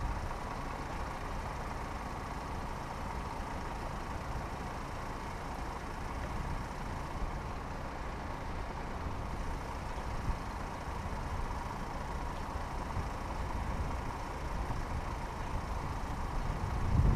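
Steady low rumble of road vehicles idling, with a faint steady tone above it.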